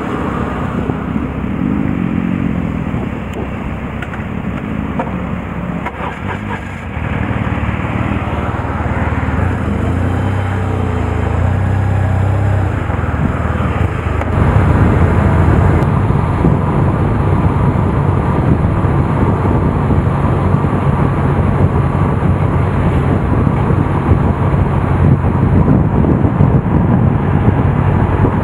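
Touring motorcycle engine heard from the rider's seat: running at low revs while rolling slowly, with some changes in pitch. About halfway through it gets louder and settles into a steady run at road speed.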